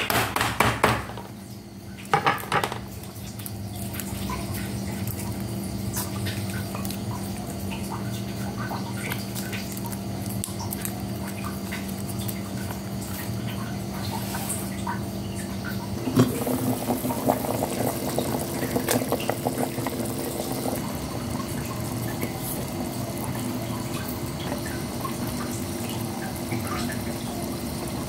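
A cleaver strikes a wooden cutting board several times near the start, crushing garlic cloves with the flat of the blade. A steady watery noise follows, and about halfway through it changes to a denser patter of small ticks.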